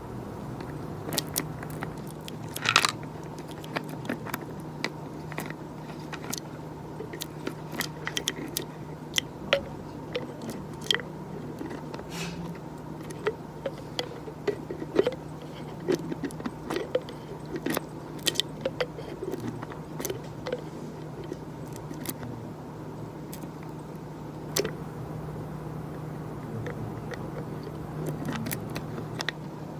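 Irregular small clicks and crunches, a few a second, over a steady low electrical hum.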